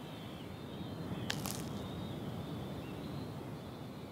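Outdoor natural ambience: a steady low rushing haze with faint high, wavering wildlife calls. There is one short sharp click a little over a second in.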